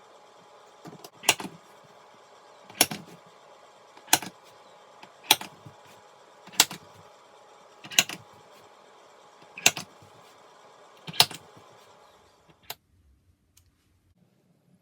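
A series of eight sharp knocks, about one every one and a half seconds, each with a lighter tap just before it, over a steady hum that cuts off near the end.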